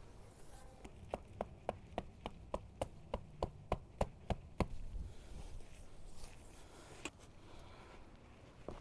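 A run of about a dozen sharp, evenly spaced knocks, roughly three a second, starting about a second in and stopping before the middle. A single fainter click follows a couple of seconds later.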